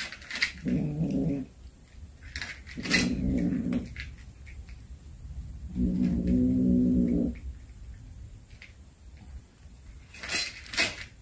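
Cat growling low over a snake it has caught, guarding its prey: three drawn-out growls of about a second each, the last the longest. Short scratchy noises come near the start, in the middle and near the end.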